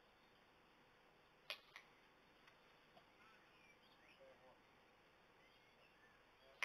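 Two knocks of a cricket ball at the batting end about a second and a half in, a sharp one then a softer one a moment later, over near silence with faint bird chirps.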